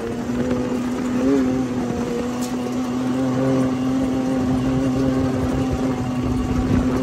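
Off-road side-by-side (UTV) engine running at a steady, even speed, with a brief wobble in pitch about a second in.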